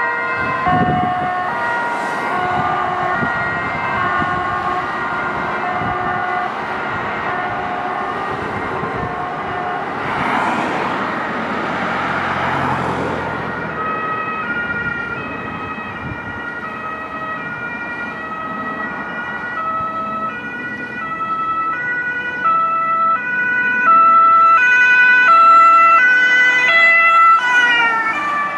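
German two-tone sirens (Martinshorn) of emergency vehicles on a call, several sounding at once at different pitches, each alternating between two notes. A rushing noise passes about ten seconds in. A louder siren comes close in the second half and its pitch drops as it passes near the end.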